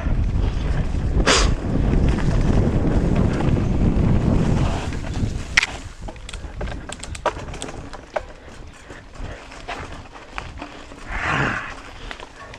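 Wind rumbling on the camera microphone as a mountain bike rolls fast down a dirt singletrack, with a brief sharp sound about a second in. After about five seconds the wind drops, leaving tyre noise on the dirt and scattered clicks and rattles from the bike.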